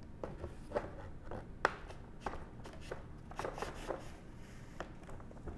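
Irregular light clicks, taps and rubbing as a foam RC airplane wing panel is slid along its wing joiner tube and pressed into place against the fuselage.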